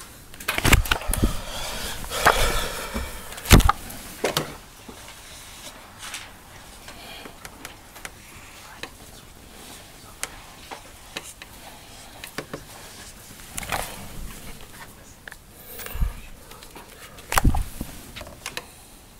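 Scattered knocks and clicks in a small room, a handful of them loud, with a brief stretch of low voices in the first few seconds.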